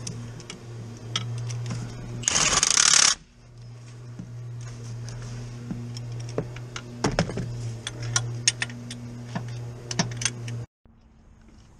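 Socket wrench on a long extension working a bolt in the engine bay: scattered metallic clicks and taps of the tool, with a loud rasping burst of a second or so about two seconds in, over a steady low hum. The sound cuts off suddenly near the end.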